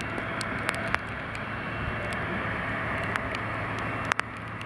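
Heavy rain hissing steadily, with many sharp raindrop taps close to the microphone, two louder ones about four seconds in, over a steady low hum.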